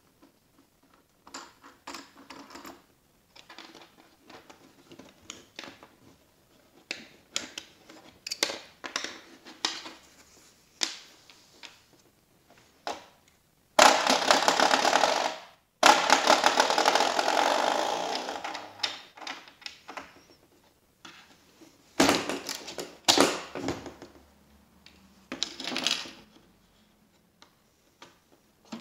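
The moving parts of a homemade wooden busy board being handled: clicks, knocks and rattles of blocks, latches and switches, then a loud rattling clatter lasting a few seconds about halfway through, and a few sharp clicks near the end.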